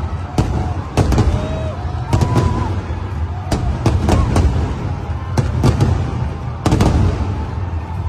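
Aerial fireworks bursting overhead: a rapid, irregular series of sharp bangs, about two a second, over a continuous low rumble.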